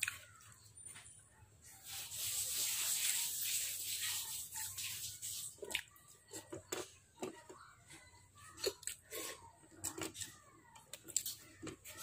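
Close-up mouth sounds of someone eating with their fingers: irregular wet smacks and chewing clicks through the second half. Before them, a steady hiss lasts a few seconds.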